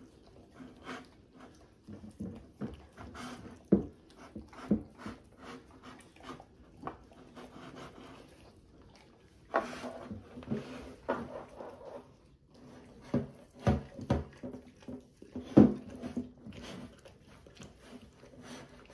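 Two dogs licking their empty bowls clean: irregular wet lapping and slurping, with the bowls knocking and scraping against the table and stool. There are several sharper knocks, most of them in a cluster in the second half.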